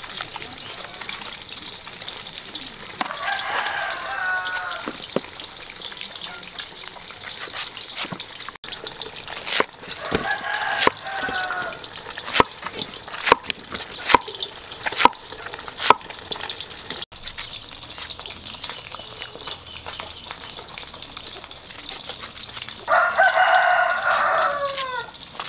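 A rooster crowing three times: a few seconds in, at about ten seconds, and near the end. In between, a cleaver chops through a vegetable stalk onto a wooden chopping block, about one sharp chop a second.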